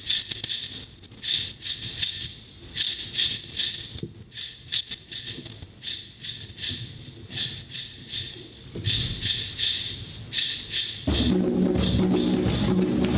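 Live percussion music for a Haitian Yanvalou dance: a hand rattle shaken in a steady rhythm, a few strokes a second. About eleven seconds in, drums and low steady tones come in.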